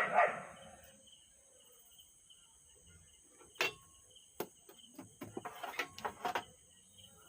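Scattered sharp clicks and a short patch of crackling from hand-soldering resistors onto an amplifier circuit board, over a steady high-pitched whine.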